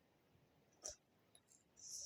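Near silence, broken by one sharp click a little under a second in and a short, high-pitched scrape near the end.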